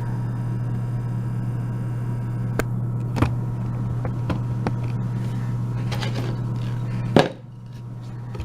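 Scattered small metal clicks and taps from a just-picked euro cylinder lock and picking tools being handled, over a steady electrical hum. The sharpest click comes about seven seconds in, and the hum drops away right after it.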